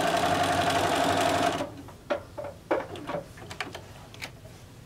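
Bernina sewing machine stitching at a steady speed, joining quilt block pieces, then stopping abruptly about a second and a half in. A few light clicks and fabric rustles follow as the sewn pieces are handled.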